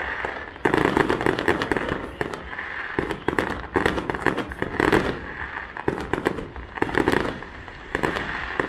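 Fireworks display in a rapid barrage: many bursts and crackles overlapping with hardly a gap.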